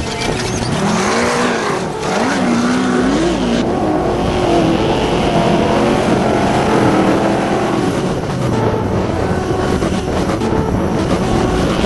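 Off-road race vehicle's engine revving hard, its pitch rising and falling again and again as the driver works the throttle, over steady road and drivetrain noise.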